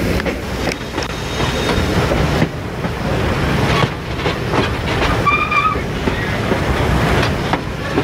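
Excursion train hauled by Reading steam locomotive 2102 rolling along the track, a steady rumble with wheels clicking over the rail joints. A brief high tone sounds about five seconds in.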